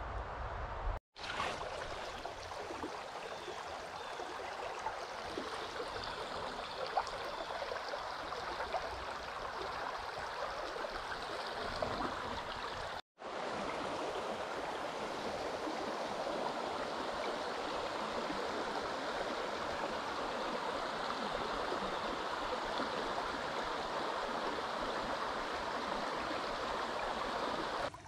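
Water of a small rocky mountain stream running steadily over stones and through riffles. The sound breaks off twice for a split second, about a second in and again around thirteen seconds in.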